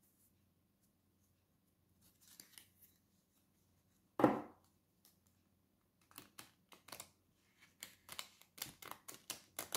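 A deck of tarot cards being shuffled by hand: a faint scratch, a single thump about four seconds in, then from about six seconds a run of quick crisp card snaps, several a second and getting faster.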